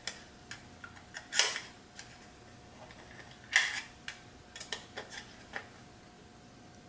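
Hard plastic drone canopy being handled and fitted onto a carbon-fibre quadcopter frame: scattered light clicks and taps, with two louder knocks about a second and a half and three and a half seconds in.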